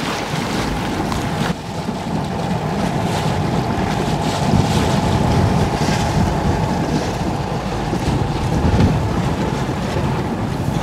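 Wind buffeting the microphone and water rushing past the hull of a sailboat under way, with a steady high hum running underneath.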